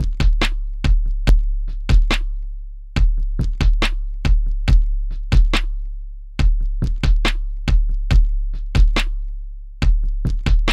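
Electronic drum-machine beat: sharp percussive hits over a deep, decaying bass, in a pattern that repeats about every three and a half seconds.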